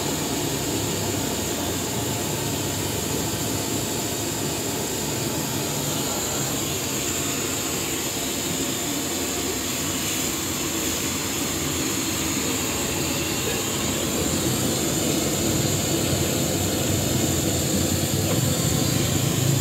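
Noodles and greens stir-fried in a large wok over a high-flame burner: a steady roar from the burner with sizzling from the wok, growing a little louder near the end.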